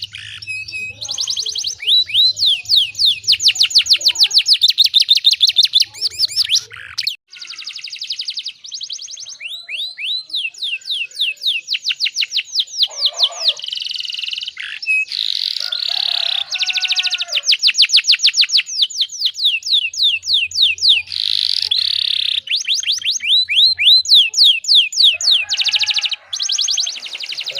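Domestic canary singing a long song of fast rolling trills: runs of rapidly repeated high notes that switch to a new phrase every second or two, with a couple of brief breaks.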